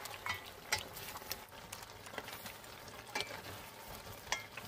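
Wooden spatula stirring and turning pork back ribs in a stainless steel pot, with irregular knocks and scrapes against the pot over the steady hiss of the simmering spicy sauce.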